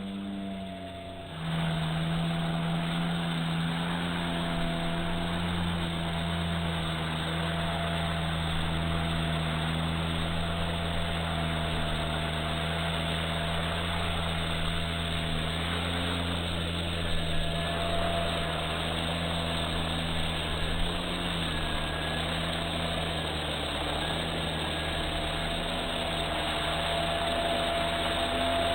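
Music ends about a second and a half in. It gives way to the FlyWing MH-60T Jayhawk RC helicopter's electric motor and rotors running steadily, a continuous hum that shifts slightly in pitch now and then.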